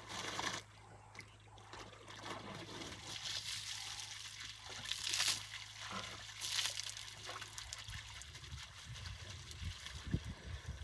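Water trickling and splashing in a shallow pool as an African elephant draws water with its trunk and squirts it out, with two louder splashes about five and six and a half seconds in.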